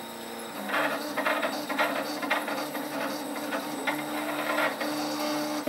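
CraftBot Plus 3D printer running a print: its stepper motors give steady tones that jump from pitch to pitch as the print head changes moves, with irregular rattling buzzes over them from about a second in. There is some resonance from the sheet-metal frame and a faint high-pitched whine, which the owner puts down to either the gantry bearings or the motor drivers.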